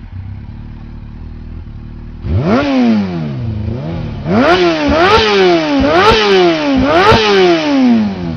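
Kawasaki GTO 125's two-stroke engine idling, then revved: one sharp blip of the throttle about two seconds in, then three quick revs in a row, each rising fast and falling back more slowly.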